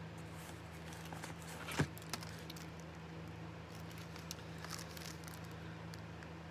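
Faint handling noises as plastic CD jewel cases are taken out of a cardboard box, with one sharp click or knock a little under two seconds in and a few softer clicks later, over a steady low hum.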